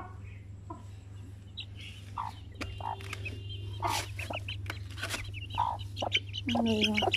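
A hen clucking softly with her young Aseel chicks peeping, in scattered short calls, with a longer, lower call near the end. A steady low hum runs underneath.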